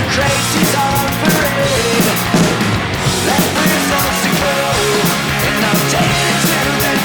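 Loud rock music with a steady beat: a Roland TD-17KVX electronic drum kit played along to a recorded rock track.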